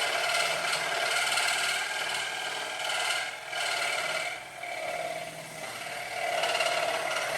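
Electric scroll saw running, its reciprocating blade cutting through thin wood with a steady buzzing rattle that eases briefly twice partway through.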